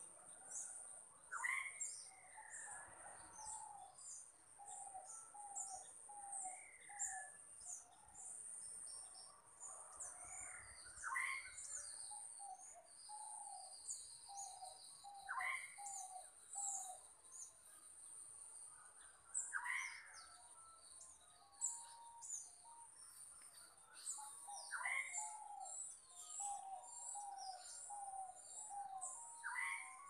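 Several birds calling: one repeats a sharp rising call every four to five seconds, another gives runs of short, quick falling notes, all over a steady high insect drone.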